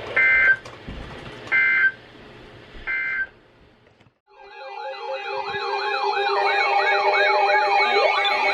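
Three short two-tone data bursts about a second and a quarter apart: the EAS end-of-message signal closing a warning. After a brief gap, electronic sirens fade in, several at once. One wails quickly up and down, about three or four times a second, over steady tones, and a slower rising wail joins near the end.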